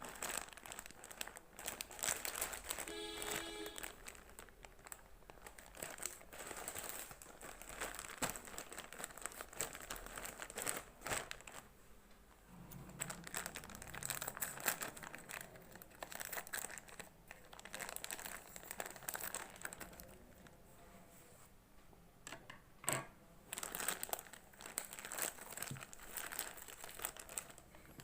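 Plastic packaging crinkling and rustling in irregular bursts as a parcel of sanitary pads is handled and opened. A brief tone sounds about three seconds in.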